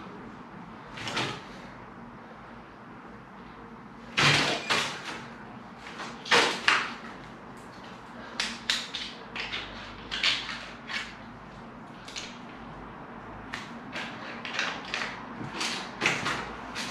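Irregular knocks, clunks and clatter from hands-on work on a UPVC window frame, with plastic glazing packers and the frame being handled and fitted. The loudest knocks come about four seconds in and twice more around six and a half seconds.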